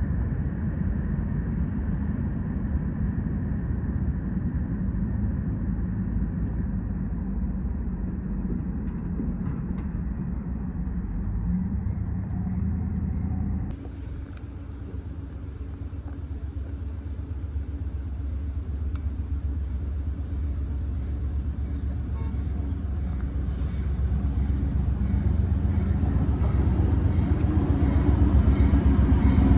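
Low rumble of trains running. It breaks off abruptly about halfway through, then grows steadily louder toward the end as a train comes closer.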